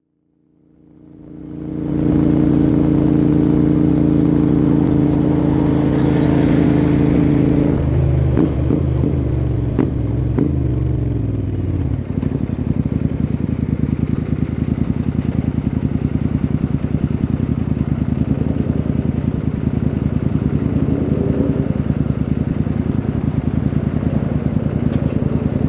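Motorcycle engine running at a steady speed, its pitch falling from about eight seconds in as it slows, then idling with an even pulsing beat from about twelve seconds on.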